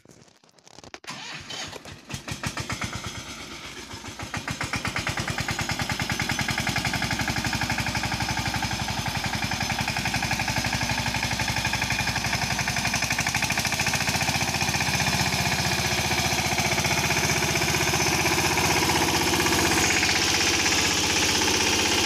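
Mahindra Yuvraj compact tractor's single-cylinder diesel engine running under load with a rapid, even chugging as the tractor pulls a trailer through deep mud. It grows louder over the first few seconds, then runs steadily.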